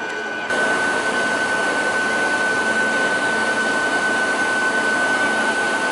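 A parked Kintetsu Urban Liner electric train's auxiliary equipment and air-conditioning blowers run as a steady hiss with a constant high whine. The sound steps up louder about half a second in.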